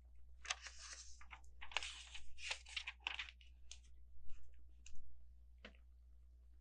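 Plastic LEGO pieces being handled: a run of rustling, crunching sounds over the first three seconds, then a few scattered small clicks.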